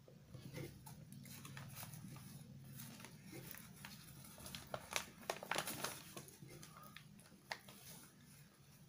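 A spoon scrapes and taps through rice in a paper food wrapping while the paper crinkles, with a cluster of sharp clicks a little past the middle. A low steady hum runs underneath.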